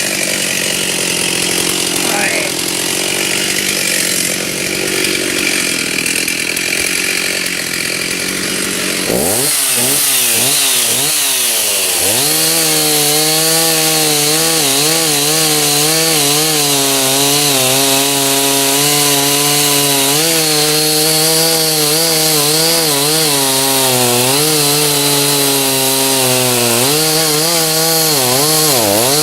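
Stihl chainsaw running steadily for about nine seconds, then revved up and down a few times and held at high speed cutting into the oak wood, with the engine note wavering under load and dipping briefly near the end.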